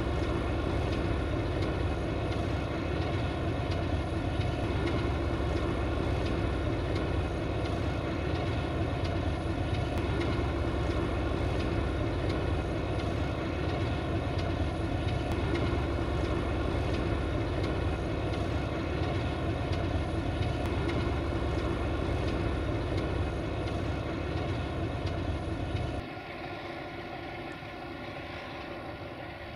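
LDE2100 (class 060-DA) diesel-electric locomotive's Sulzer diesel engine running steadily at idle, a loud, even drone. About 26 s in, the sound drops abruptly to a quieter, thinner engine note as the locomotive creeps forward.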